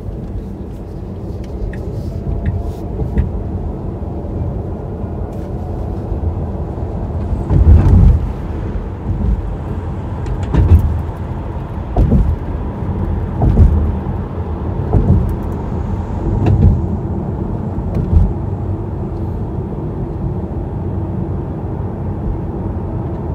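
Car driving at speed on an expressway, heard from inside: a steady low rumble of tyres and engine. From about eight seconds in, low thumps come roughly every one and a half seconds.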